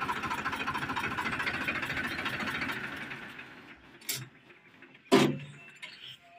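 Sonalika DI 750 tractor's diesel engine running with an even, rhythmic clatter, then shut off and dying away about three to four seconds in. A click follows, then a sharp clank about five seconds in, the loudest sound.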